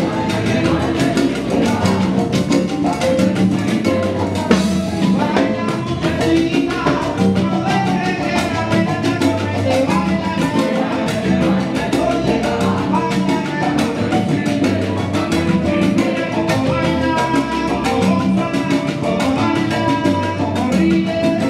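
Live Cuban salsa band playing, with congas and timbales keeping a steady rhythm under bass and piano, and a lead singer singing over the band.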